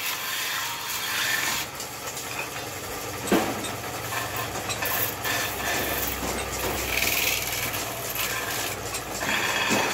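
Belt-driven metal spinning lathe running steadily while a long-handled spinning tool is pressed against the turning iron sheet, forming it into a ghamela pan: a low machine hum under the scraping hiss of the tool on the metal, with one sharp knock about three seconds in.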